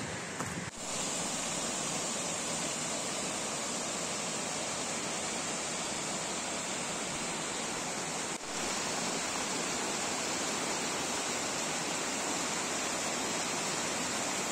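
Mountain waterfall cascading down a rocky streambed: a steady rush of water. It dips briefly about a second in and again just past eight seconds.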